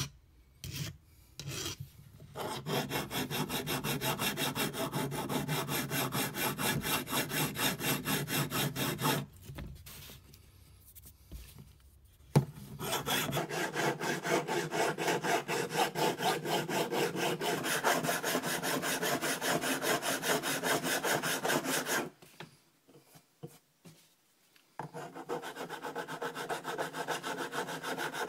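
Steel vernier calipers being worked by hand with an abrasive in rapid, rasping back-and-forth strokes, in three runs separated by two short pauses.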